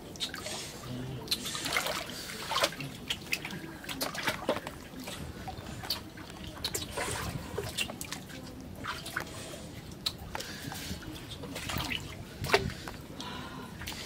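Small stream trickling over rocks, with irregular splashes and drips as the water is stirred. There is one louder splash near the end.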